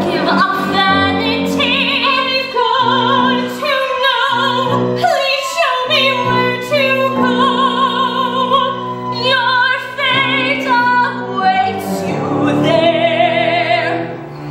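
A woman singing in an operatic style with a wide vibrato on long held high notes, over instrumental accompaniment.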